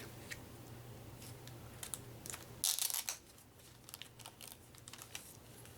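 Board game cards being handled and sorted, with light clicks and taps and a short, louder rustle about three seconds in.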